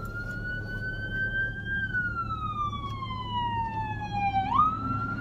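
Emergency vehicle siren wailing, its pitch climbing slowly, falling slowly over a few seconds, then jumping sharply back up near the end. It is heard from inside a car, over the low hum of the cabin.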